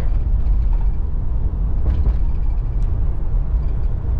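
Road and engine noise heard inside the cabin of a car moving at speed: a steady low rumble.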